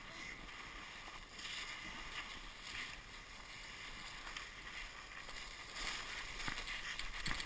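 A sled sliding downhill over snow: a steady hiss and scrape that swells and fades, with wind rushing past the microphone, growing louder near the end with a couple of short knocks from bumps.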